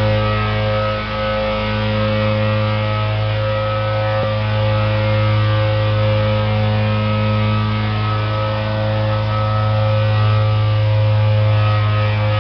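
Pneumatic grain conveyor running as its suction nozzle draws grain from a heap: a steady, loud machine hum with a whine above it and a hiss.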